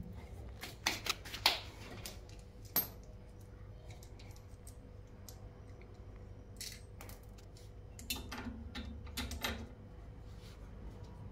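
Scattered small metallic clicks and taps from hands working on a refrigerator compressor and its wiring, with a cluster of sharper ones in the first three seconds and more near the end, over a steady low hum.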